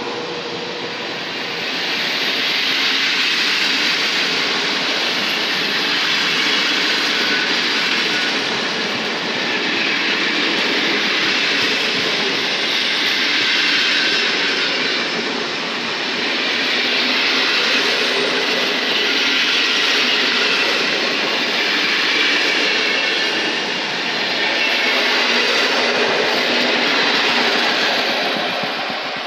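PKP Intercity passenger coaches rolling past at close range as the train pulls out, a steady rushing rail noise of wheels on track that swells and eases every few seconds as the coaches go by.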